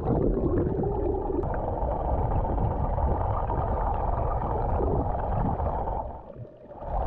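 Muffled gurgling and rushing of water picked up by a camera held underwater, dull and boomy with the high end cut away. It eases off about six seconds in, then swells again at the very end.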